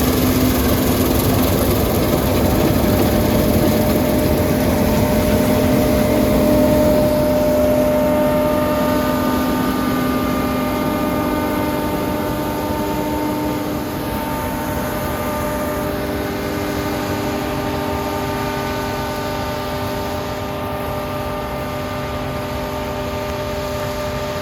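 John Deere combine harvester running steadily while cutting winter barley, running smoothly "like a little sewing machine": a constant engine and threshing hum with several steady whining tones that shift a little partway through.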